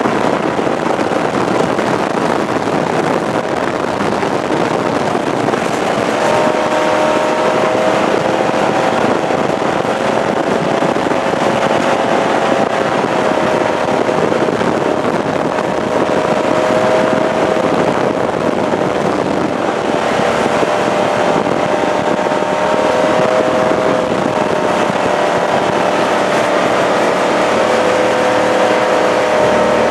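Jet boat running at speed: a loud, steady rushing of wind and water with the engine's steady note, which comes up about six seconds in and holds, wavering slightly.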